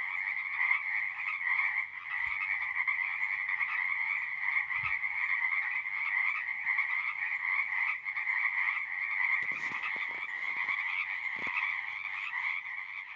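A dense, continuous chorus of many frogs calling together, fading near the end.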